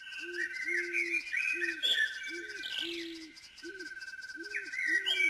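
Nature ambience of songbirds chirping and warbling over a steady pulsing insect-like trill that breaks off and resumes. Beneath them a low hooting call repeats about twice a second.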